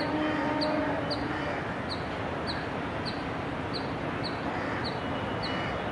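Rumble of a train with an electric locomotive's horn sounding one steady chord that stops about a second and a half in, while a bird gives short high chirps about twice a second throughout.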